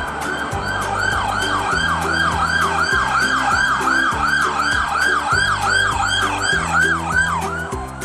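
Police car siren in a fast yelp, its pitch sweeping up and down about three times a second and cutting off just before the end. Background music with a steady beat plays underneath.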